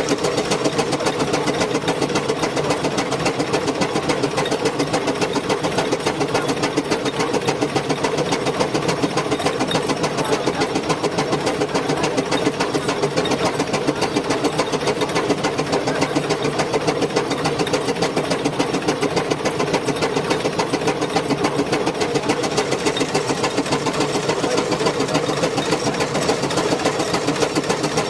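An engine running steadily with an even, rapid beat.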